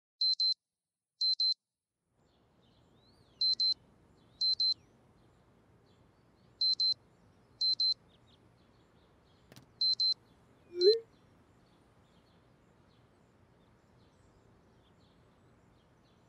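Electronic alarm beeping in quick double beeps, two pairs about a second apart, then a pause, repeating four times, and stopping about eleven seconds in as it is switched off. A brief rising sound, the loudest moment, comes right as the beeping stops, then only faint room hiss.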